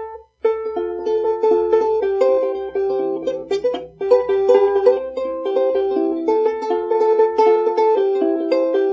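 A plucked string instrument playing a quick melody of separate picked notes, with a brief break about four seconds in.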